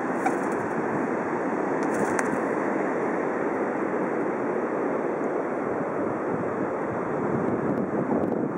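Steady rush of ocean surf, with wind on the microphone adding a low, uneven rumble.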